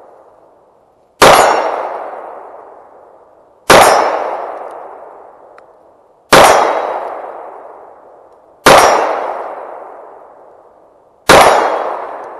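Five shots from a 9mm Jericho 941 pistol, fired slowly and evenly about two and a half seconds apart, each sharp report fading out over about two seconds.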